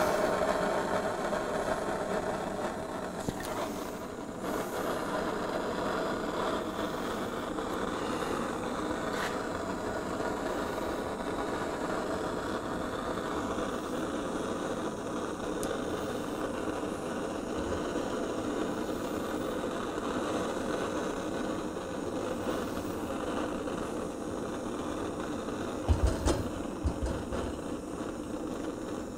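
Handheld gas blowtorch burning with a steady blue flame, a continuous rushing hiss, warming a motorcycle wheel hub so a dust seal will seat. A few dull knocks near the end.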